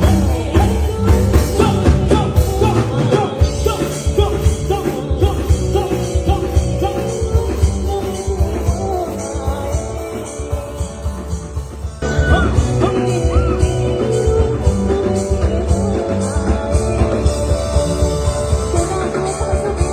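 Live band performing a song: a singer over guitar and a steady beat.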